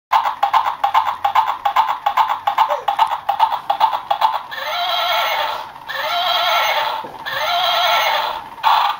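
Plush toy horse's electronic sound effect: about four seconds of galloping hoof clip-clops, about five a second, then three long wavering whinnies.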